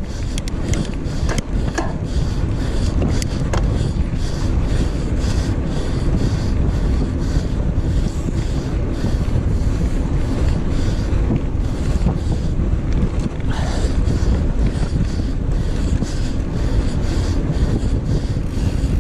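Wind buffeting the microphone of a mountain bike's action camera while riding fast over hard dirt, with the rumble of the tyres on the ground. A few sharp rattles from the bike come in the first few seconds.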